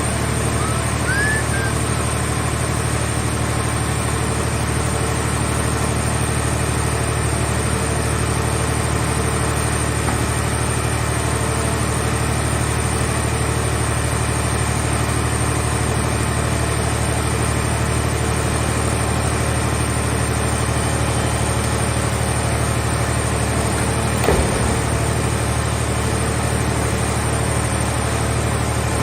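Steady engine drone of a vehicle shell baler's power unit running at a constant speed, with one short knock about 24 seconds in.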